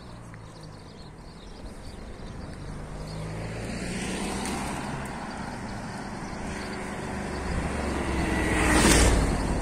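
Motorcycle engine approaching along the road, growing steadily louder and passing close by about nine seconds in.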